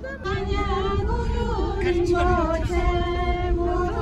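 A group of women singing together in unison, a slow melody with long held notes, over the low rumble of the bus they are riding in.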